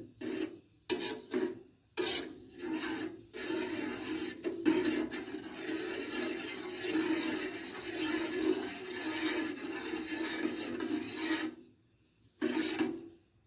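A spoon stirring a pot of water and chopped herbs, scraping against the pot. It starts with a few short separate strokes, then scrapes almost continuously, stops about two seconds before the end, and gives one last short stroke.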